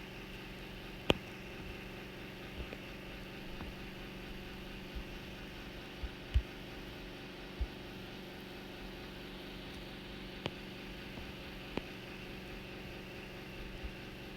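A steady mechanical hum with a few scattered sharp clicks and one low knock near the middle.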